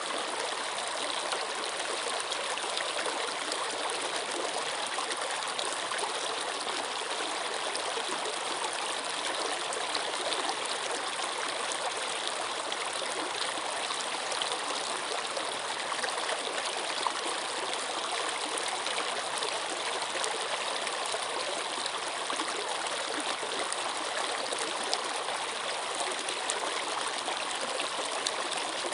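Flowing water, a steady, even rush with no pauses or changes.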